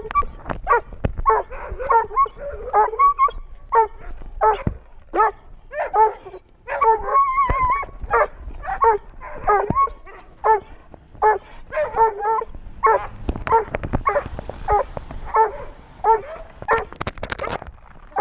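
Young Doberman pinscher puppy giving short yips, barks and whines over and over, about one or two a second, with scattered knocks.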